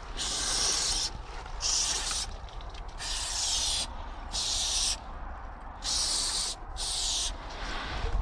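Aerosol spray paint can hissing in six short bursts, each under a second long, as yellow lines are sprayed onto a wall.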